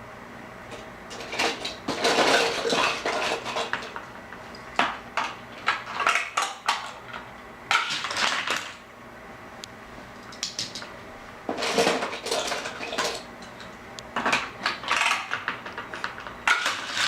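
Small die-cast toy cars and plastic Hot Wheels track pieces clattering and rattling, in repeated bursts of sharp clicks with short pauses between.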